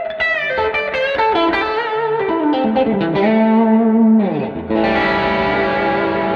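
Telecaster-style electric guitar played through a Fender Hot Rod tube amp: a lick of bent single notes, a note sliding down about four seconds in, then a chord struck and left ringing near the end.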